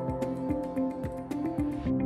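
Background music: sustained held notes over a light, regular tick of about four beats a second.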